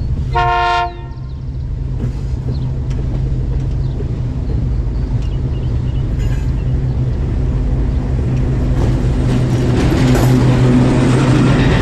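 Small-displacement motorcycle engine running steadily while riding, slowly getting louder with more wind noise toward the end. A horn gives one short beep about half a second in.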